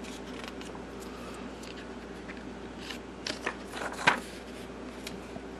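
A page of a large paper brochure being turned by hand: soft paper rustling, then louder rustles and a sharp paper snap about four seconds in, over a faint steady hum.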